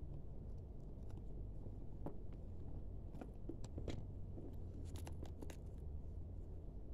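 Hands handling a faux-leather shoulder bag: soft rustling and scattered light clicks of its metal zipper and hardware, with a cluster of clicks about five seconds in, over a steady low hum.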